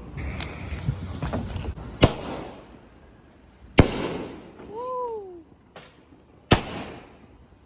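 Consumer fireworks going off: a dense crackle at first, then three sharp bangs, each with an echoing tail, spaced about two to three seconds apart.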